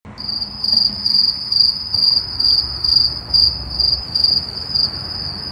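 A cricket trilling: one steady, high, shrill note that swells about twice a second, over a low background hum.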